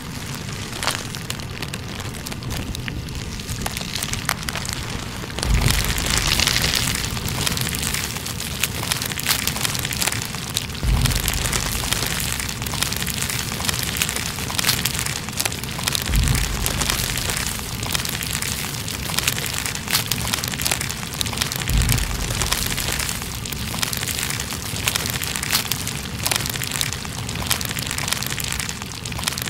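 Dense crackling and sizzling of a brush's bristles burning in a flame, many small snaps over a steady hiss, with a deep low thump about every five and a half seconds.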